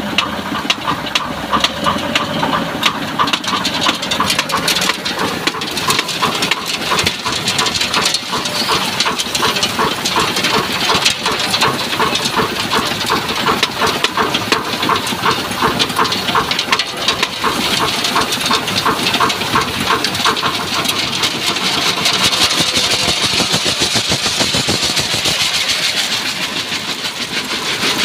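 Aggregate washing screen running: a steady, rapid mechanical rattle of the vibrating screen, with water spraying and rushing and stones clattering over the mesh.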